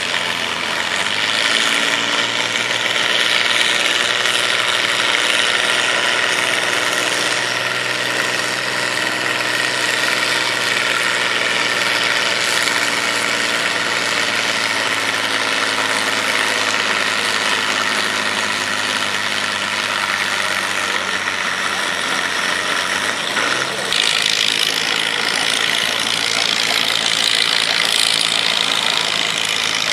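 Farm stock diesel tractor pulling a sled under full load, its engine running steady and hard for about twenty seconds, then easing off as the pull ends.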